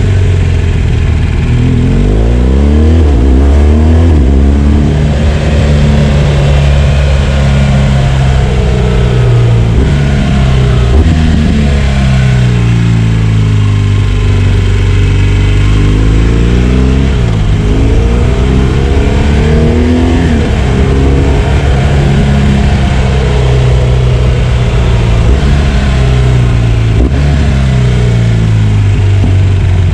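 BMW R1200 GS boxer-twin motorcycle engine under way, its revs climbing and dropping again and again as the rider works the throttle and shifts gears. The sound is heard clean, with no wind noise.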